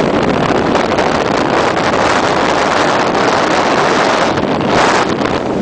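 Storm-force wind, Force 10 to 11, blowing across the microphone as heavy seas break over a cargo ship's bow: a loud, steady rush of noise that swells for about a second near the end.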